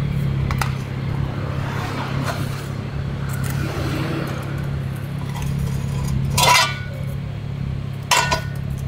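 Metal crate brackets being handled and pulled off a motorcycle shipping pallet: two sharp metallic clanks with a short ring, the second near the end, over a steady low hum.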